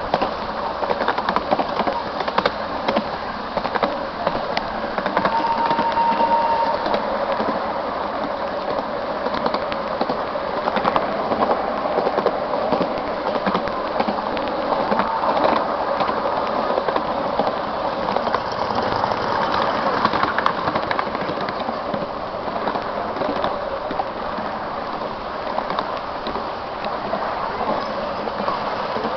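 A 7¼-inch-gauge miniature railway train running at speed, heard from a passenger carriage: a steady rumble and clatter of wheels on the rails. A short high note sounds about five seconds in.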